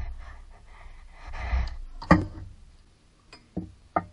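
Hand work on parts around the water pump pulley: a rustle with breathing for about two seconds, then one sharp metallic knock and a few lighter clicks near the end.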